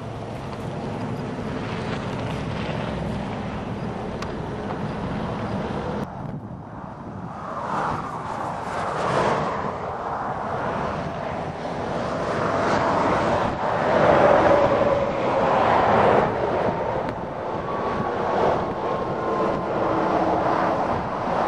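Highway traffic passing by, vehicles swelling and fading past one after another, with wind buffeting the microphone. About six seconds in the sound cuts and the passes get louder.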